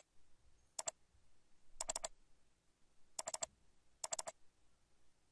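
Computer mouse buttons clicking, mostly in quick double-clicks, about once a second, as folders are opened in a file dialog.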